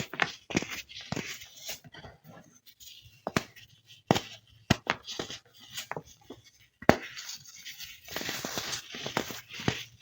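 Crispy baked baking soda being broken and crushed: sharp dry cracks at irregular intervals, with a longer stretch of crunchy crumbling near the end.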